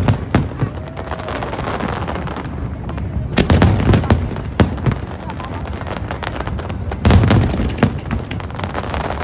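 Fireworks display: aerial shells bursting with deep booms in three loud clusters, at the start, around four seconds in and around seven seconds in, with quicker crackling bangs in between.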